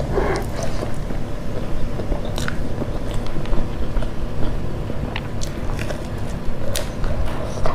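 Close-miked mouth sounds of chewing a handful of rice, with scattered sharp wet clicks, then a bite into a fried pakora near the end.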